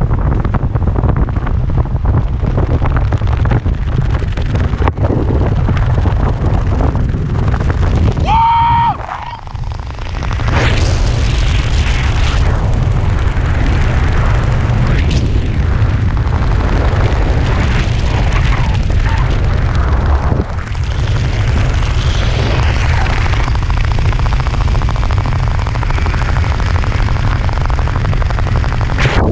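Wind buffeting the action camera's microphone during a parachute canopy flight: a loud, steady rumble with gusty swells. A brief high tone sounds about eight and a half seconds in.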